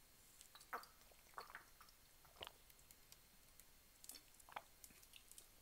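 Faint gulps and swallows of water drunk from a plastic bottle, about half a dozen short separate sounds.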